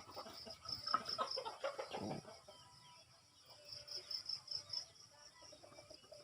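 Chickens clucking in a run of short calls, busiest in the first two seconds and again about four seconds in, over a high, steady, pulsing chirp.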